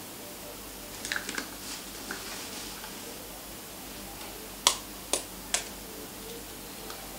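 Metal cutlery tapping against an eggshell to crack it: three sharp taps about half a second apart, after a few lighter clicks about a second in.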